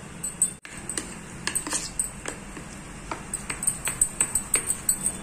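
A steel spoon stirring thick semolina batter in a steel bowl, clinking sharply and irregularly against the bowl several times a second. The clinking starts about a second in.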